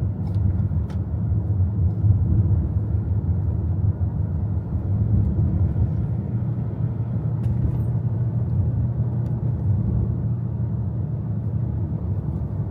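Steady low rumble of a car in motion, heard from inside the cabin: engine and road noise with no sudden changes.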